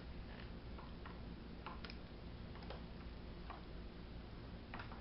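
Faint, irregular small clicks and ticks from a hand-worked syringe hydraulic crane model: plastic syringe plungers being pushed and its wooden arm joints moving as the arm lifts.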